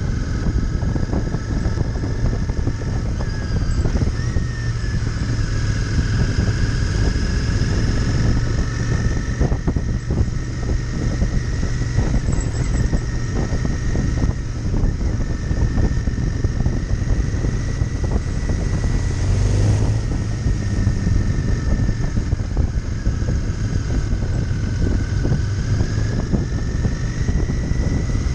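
Royal Enfield Interceptor 650's parallel-twin engine running steadily at cruising speed, heard from the saddle, with heavy wind noise on the microphone. A thin high whistle slowly rises and falls in pitch.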